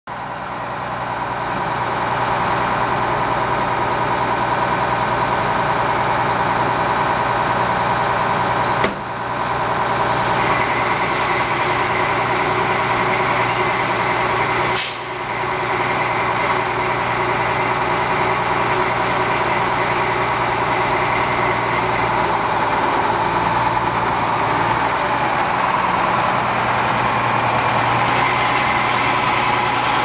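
Diesel engine of a 1983 Peterbilt 348 concrete pump truck running steadily, with a steady high whine joining about ten seconds in. Two sharp clicks come about six seconds apart.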